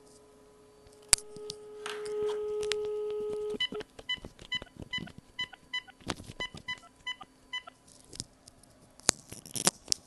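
VTech CS6124-11 DECT 6.0 cordless phone handset placing a call: a click about a second in, then a steady dial tone for about two and a half seconds, then a quick run of about a dozen short dialling beeps as the number is keyed in. Scattered clicks of handling follow near the end.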